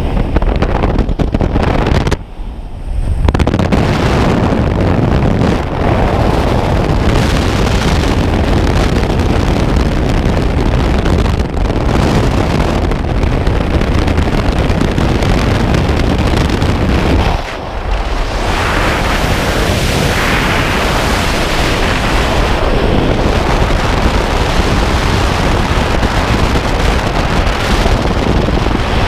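Loud, steady rush of wind over a skydiver's camera microphone at the open door of a jump plane and in freefall, broken by two brief dips, about two seconds in and again about seventeen seconds in.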